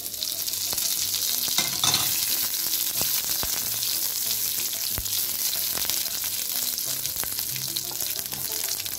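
Fresh curry leaves and dried red chillies sizzling in hot coconut oil with popped mustard seeds, stirred with a wooden spatula: a steady high hiss with scattered crackles and one sharp click about five seconds in.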